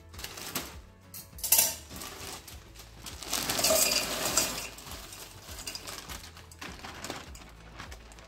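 Frozen mixed vegetables poured from a plastic bag into a stainless steel pot, the hard frozen pieces clattering against the metal, loudest from about three to four and a half seconds in. The plastic bag crinkles as it is handled, with a sharp noise about a second and a half in.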